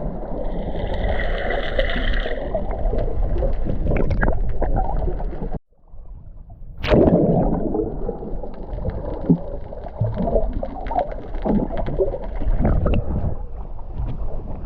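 Water gurgling and sloshing against a moving boat, with a steady low rumble and scattered splashy clicks. It cuts out suddenly about five and a half seconds in and picks up again about a second and a half later.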